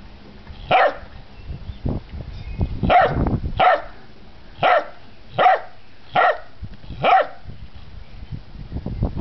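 Bernese mountain dog puppy, almost nine weeks old, barking: seven short puppy barks, one shortly after the start, then six more about a second apart.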